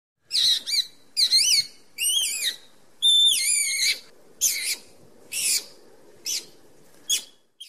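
Skunk calling: a series of about eight short, high-pitched squeaks and chirps, several of them warbling up and down in pitch, the longest about three seconds in.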